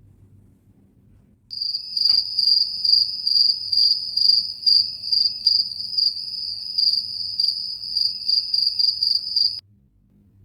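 Cricket chirping, a high steady trill pulsing about twice a second. It starts suddenly about a second and a half in and cuts off abruptly near the end, the way an edited-in sound effect does.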